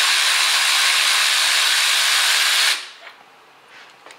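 Cordless electric ratchet running steadily as it spins a loosened spark plug out of a Honda K24 cylinder head, with a high whirr that stops abruptly about three seconds in. Faint small clicks of handling follow.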